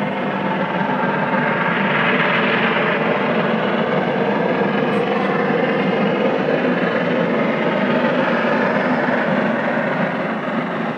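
Jubilee class three-cylinder 4-6-0 steam locomotive 45699 Galatea working hard with its train at speed: a loud, steady rush of exhaust and running noise that swells about two seconds in.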